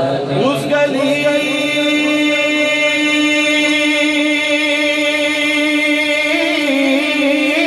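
A man singing a naat (Urdu devotional poem in praise of the Prophet) into a microphone: his voice glides up about half a second in, holds one long steady note for about five seconds, then steps up in pitch near the end.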